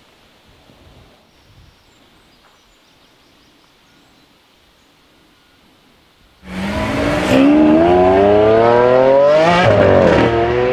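McLaren 765LT Spider's twin-turbo V8 accelerating hard. After several seconds of faint outdoor background, the engine comes in suddenly and loudly about six seconds in, its pitch climbing, dipping once at an upshift, and climbing again.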